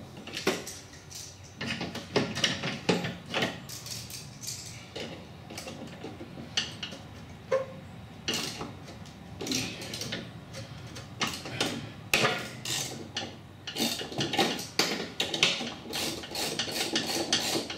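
Metal hand tools clinking, knocking and scraping against the pulley and metal cutter deck of a ride-on mower, in irregular bursts, as a pulley bolt is worked loose.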